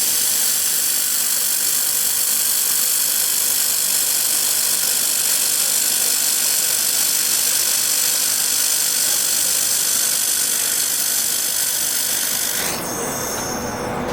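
Laser welding machine running a weld: a loud, steady hiss with a sizzle, from the shielding gas and the weld, that cuts off sharply about a second and a half before the end.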